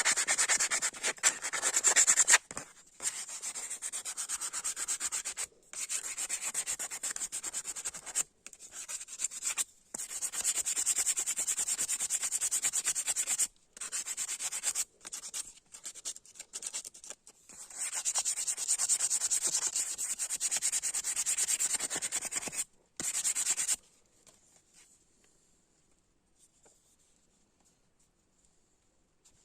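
An abrasive being rubbed by hand over a knife made from a chainsaw bar: quick back-and-forth scraping strokes in spells of a few seconds with short breaks, stopping near the end.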